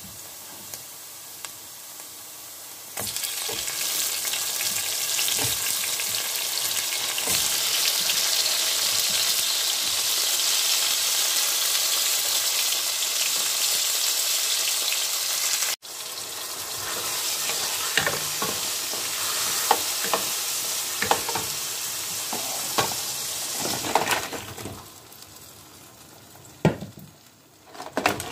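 Chopped onions and garlic, and then tomatoes, sizzling in hot oil in a cooking pot. The sizzle gets much louder about three seconds in. After a short break, the frying goes on with the clicks and knocks of stirring, growing softer in the last few seconds.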